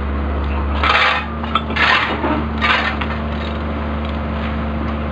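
Hand tools scraping and clinking on steel rail in three short rasps about a second apart, over the steady hum of an engine running.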